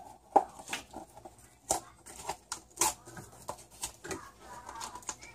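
Irregular light clicks and taps from a set of plastic measuring spoons clacking together on their ring and a cardboard baking soda box being handled on the counter.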